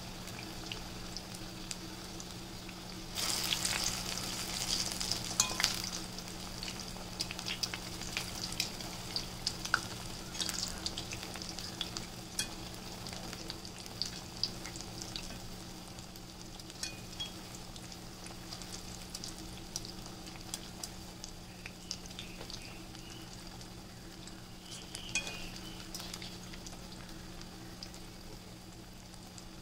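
Urad dal vadai deep-frying in hot peanut oil in a kadai: steady sizzling and bubbling with scattered sharp pops, louder for a few seconds about three seconds in.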